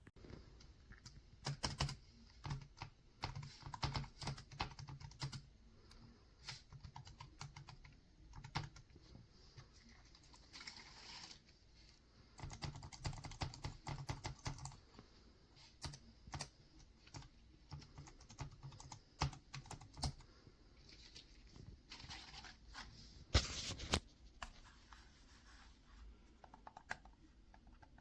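Typing on a compact wireless keyboard with round retro keycaps: irregular runs of soft key clicks broken by short pauses, with one louder clack late on.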